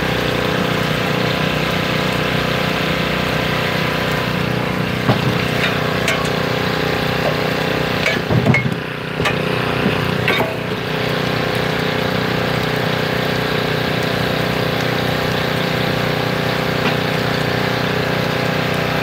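An engine running steadily at idle, with a few wooden knocks as birch logs are shoved into a steam traction engine's firebox, most of them about eight to ten seconds in.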